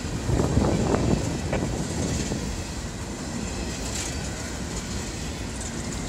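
Empty coal hopper cars rolling past on steel wheels, a steady rumble with the clack of wheels over the rail joints, heaviest in a run of knocks about a second in.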